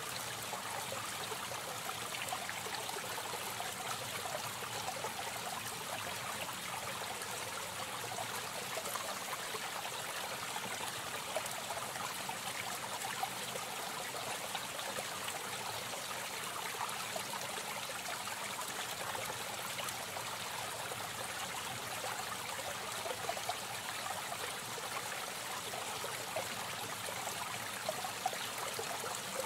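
Steady trickling and splashing of water from an aquarium's filter return, with a few faint ticks of droplets.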